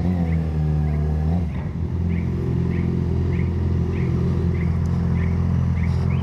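Motorcycle engine running steadily, its pitch dropping about a second and a half in and then holding level. A short high chirp repeats about every half second over it.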